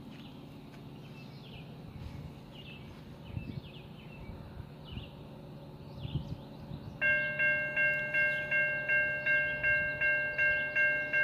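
Railway level-crossing warning bell starting up a little over halfway through and ringing evenly at about three strokes a second, the signal that a train is approaching the crossing. Before it, birds chirp faintly.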